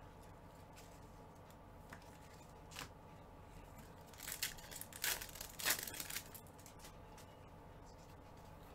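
Foil wrapper of a basketball trading-card pack being torn open and crinkled. A burst of tearing and crackling starts about four seconds in and lasts about two seconds, after a couple of faint ticks from handling.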